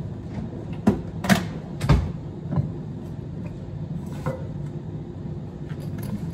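Things being handled on a desk while packing a backpack: a food container and a steel water bottle knocking and clattering on the tabletop, several sharp knocks in the first three seconds with the loudest about two seconds in, then lighter taps and rustling of the bag. A steady low hum runs underneath.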